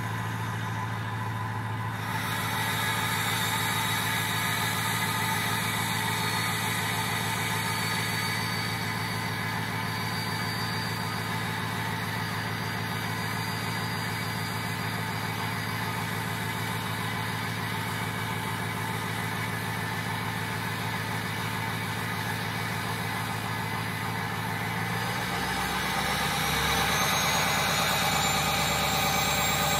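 Ford 6.0 Powerstroke V8 turbo-diesel idling steadily while warming up after a cold start. Near the end the engine note shifts and a thin high whine rises.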